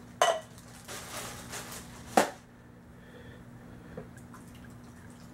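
Clear plastic bag crinkling and rustling in gloved hands, with two sharp crackles, one just after the start and the louder one about two seconds in, and a small tap near the end.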